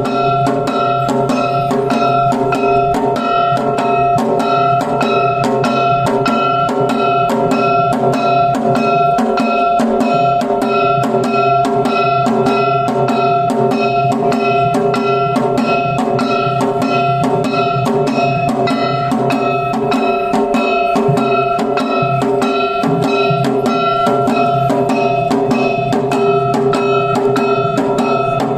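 Lion-dance percussion band: drums beaten in a fast, even rhythm of about three strikes a second over a steady ringing tone that runs on unbroken.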